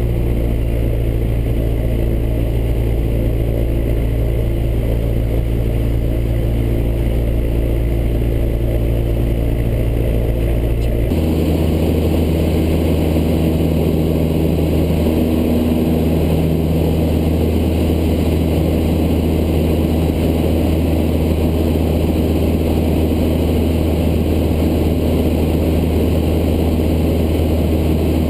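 Steady drone of a Cessna light aircraft's piston engine and propeller in flight, heard from inside the cockpit. About eleven seconds in, its tone changes abruptly and then holds steady again.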